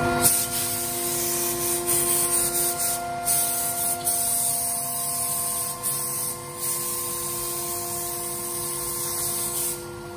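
Single-head CNC router cutting cabinet-door panel profiles into MDF: a steady spindle whine under the hiss of the bit cutting, dipping briefly a couple of times and the cutting hiss stopping near the end.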